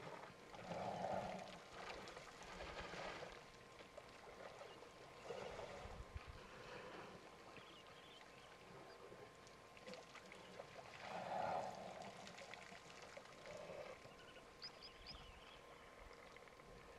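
Faint sloshing and pouring of water as an African elephant wades and drinks in a shallow waterhole, louder about a second in and again past the middle.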